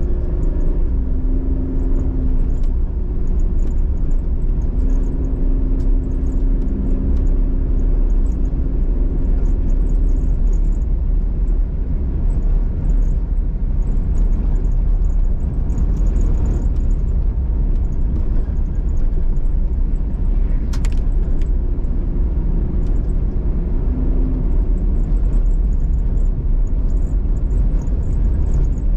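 Car driving along, a steady low rumble of engine and road noise with a faint engine hum coming and going. A single short click about two-thirds of the way through.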